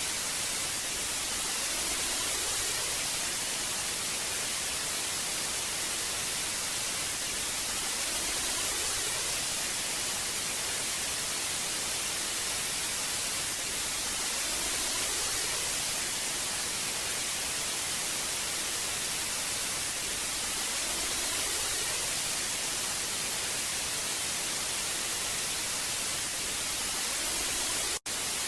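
Old analogue TV static: a steady hiss, brightest in the treble, with a faint swell in the lower tones about every six seconds. It cuts out for an instant near the end.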